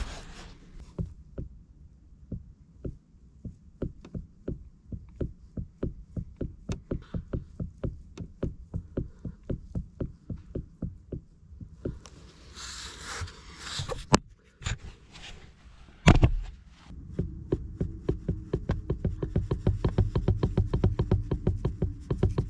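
Pitman arm on a rebuilt power steering gear rocked back and forth by hand, knocking about three to four times a second as the sector shaft takes up its play: a sign of excessive slack in the steering box. A burst of rustling and two louder sharp knocks come around the middle.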